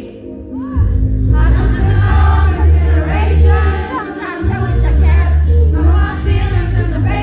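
Live pop song: a female voice singing over a band with heavy bass, which comes in strongly about a second in after a brief lull.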